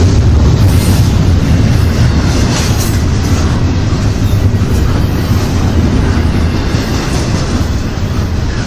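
Intermodal freight train rolling past: a loud, steady rumble of wheels on rail, easing slowly toward the end.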